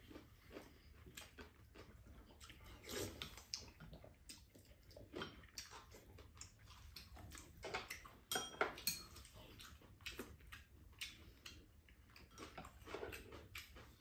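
Quiet eating sounds: chewing and mouth noises with scattered light clicks of spoons and chopsticks against ceramic bowls, a few sharper clinks about eight seconds in.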